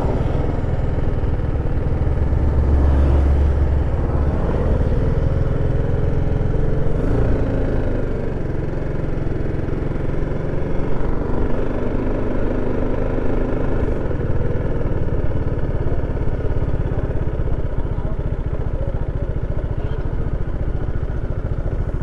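Motorcycle engine running at low road speed, its note drifting gently, under heavy wind rumble on the microphone that is strongest a few seconds in.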